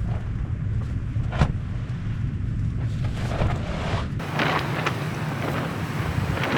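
Storm wind rumbling steadily, with rain noise, a sharp crack about a second and a half in and a few lighter taps later on.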